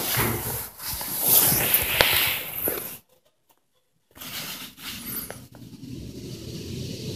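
Thyssenkrupp TK-50L high-speed traction elevator car descending, heard from inside the car. Its travel hum is steady and low in the second half. Before that come a few seconds of rustling and knocking, and then the sound cuts out for about a second.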